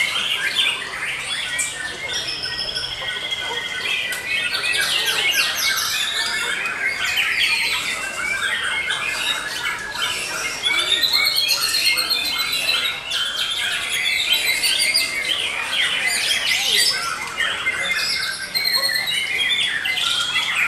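Several white-rumped shamas (murai batu) singing at once in contest cages. Their rapid trills and whistled phrases overlap without pause.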